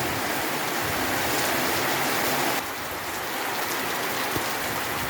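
Heavy rain falling, a steady hiss of downpour with scattered drops; the level steps down slightly about two and a half seconds in.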